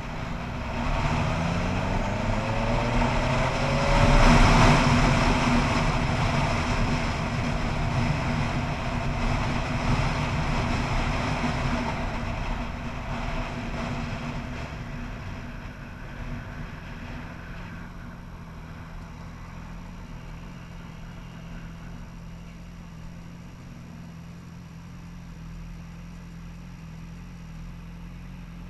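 Motorcycle engine accelerating, its pitch rising through the gears over the first few seconds, with wind rushing over the microphone loudest about four seconds in. The sound fades as the bike slows, and from about eighteen seconds in the engine idles steadily.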